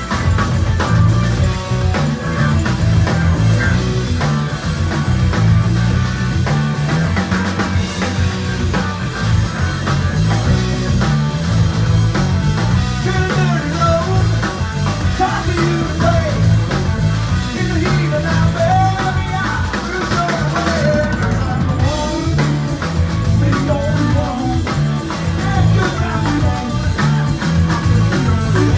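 Live progressive rock band playing loud and without a break, with drum kit, bass, electric guitar and organ.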